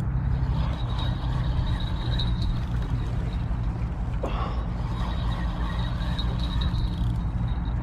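Spinning fishing reel being cranked to wind in line, a faint high whir with small ticks from its gearing, over a steady low rumble.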